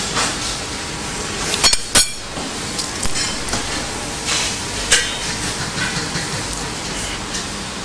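A few sharp metallic clinks of kitchen utensils: two close together about two seconds in and another near five seconds, over a steady background hiss.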